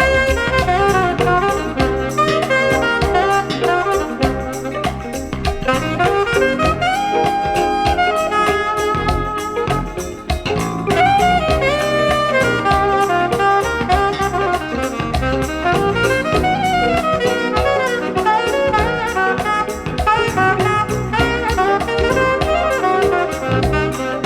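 Smooth jazz playing from a vinyl record on a turntable with an Ortofon A90 cartridge: a saxophone carries the melody over drums, bass and guitar.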